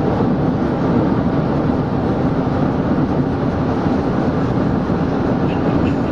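Steady road and engine noise heard from inside a moving car. A faint, rapid ticking comes in near the end.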